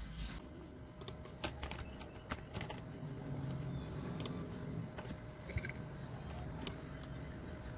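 Typing on a computer keyboard: quiet keystrokes, irregularly spaced.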